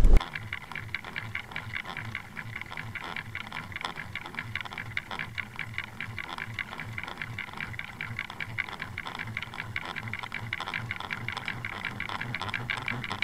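Underwater sound from a camera towed behind a trolling boat: a fast, even ticking and rattling, with a low pulsing under it.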